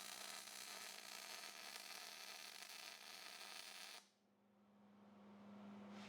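Near silence: a faint steady hum under a faint even hiss. The hiss cuts off suddenly about four seconds in.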